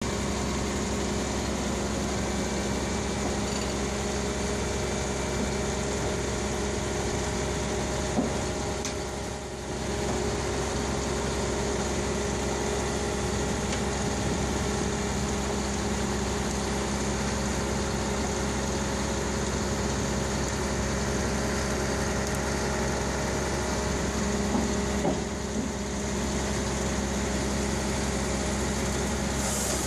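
Heavy diesel engine idling steadily, a low even hum, with a light knock about eight seconds in.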